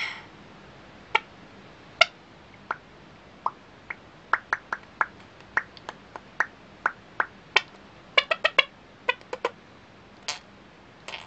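A series of short, sharp clicks at an irregular pace, with a quick run of about five clicks around eight seconds in.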